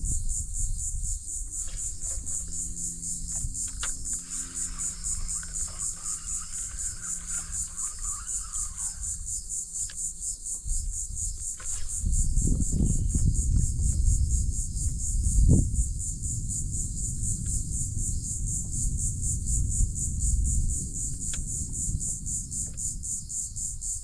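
Steady high-pitched chorus of insects, pulsing rapidly without a break. Under it is a low rumble, likely wind on the microphone, that grows louder about halfway through.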